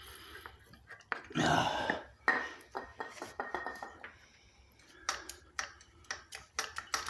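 Scattered metallic clinks and clicks of hand work on motorbike parts, with one louder short burst of noise about a second and a half in.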